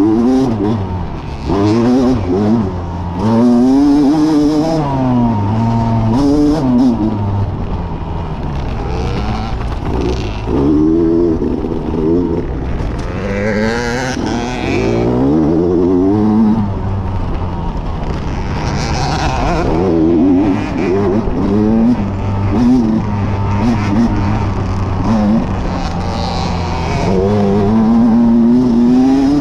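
Dirt bike engine heard from on the bike, revving hard under load on a steep dusty climb. The pitch keeps rising and falling as the rider works the throttle, over steady wind and tyre noise.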